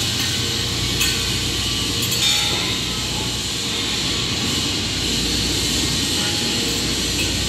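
Steady industrial shop noise: a constant low hum with an even hiss over it and a few faint ticks.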